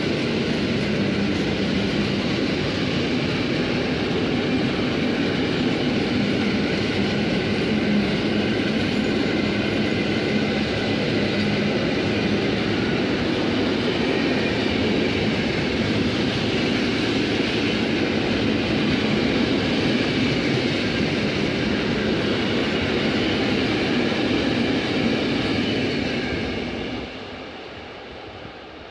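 Heavily loaded open freight wagons rolling past, with a steady rumble of steel wheels on the rails. The sound fades away about 26 seconds in as the last wagon passes.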